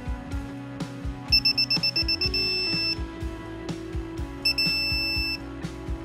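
Digital torque wrench beeping as the set torque of 10 N·m is reached: a rapid run of short beeps running into a steady tone about a second long, then two short beeps and another steady tone. Background music with a steady beat plays throughout.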